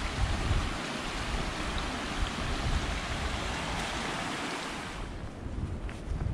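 Shallow mountain creek running over rocks, a steady rushing hiss that cuts off about five seconds in. A quieter stretch follows, with a few faint footsteps on the trail.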